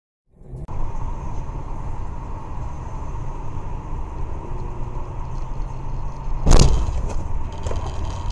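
Steady road and engine rumble heard from inside a moving car's cabin, with a faint steady whine above it. About six and a half seconds in comes a single loud thump, the loudest sound here.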